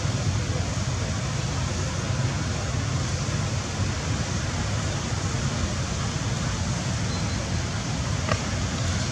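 Steady wind noise on the microphone, a low fluttering rumble under an even hiss, with one faint click about eight seconds in.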